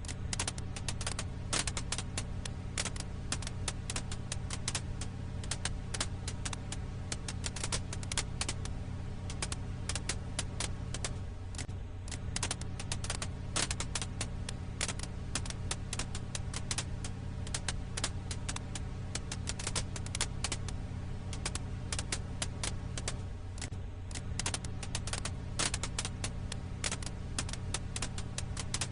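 Campfire firewood crackling: dense, irregular pops and snaps over a steady low rumble.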